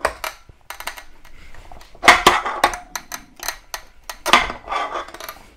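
Irregular clicks, knocks and short scrapes from a Montolit Minipiuma manual tile cutter as a porcelain tile is set on its bed and the cutting carriage is slid along the rail, with two busier bursts of scraping partway through.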